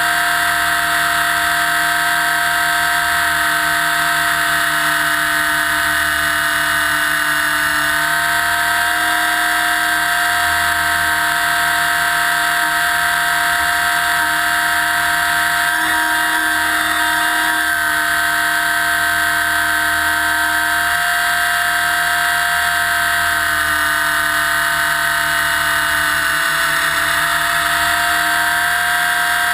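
Align T-Rex 600 electric RC helicopter's motor, drive gears and rotors whining steadily in flight, heard up close from a camera mounted on the airframe. The pitch dips and shifts slightly a few times as the load changes.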